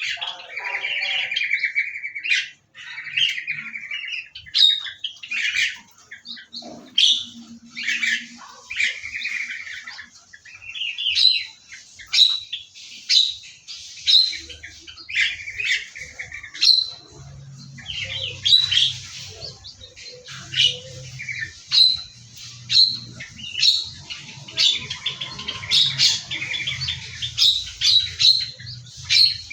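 Small caged birds chirping and chattering in an aviary: sharp repeated chirps about once a second, with buzzy twittering calls in the first part. A faint low hum runs underneath from a little past halfway.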